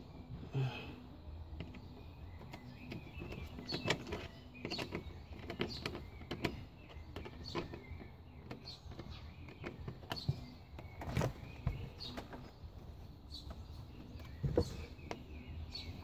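Irregular clicks, taps and knocks of hand work on an intercooler pipe: a screwdriver turning worm-drive hose clamps and hands working a rubber coupler onto the pipe. The loudest knocks come about eleven seconds in and near the end.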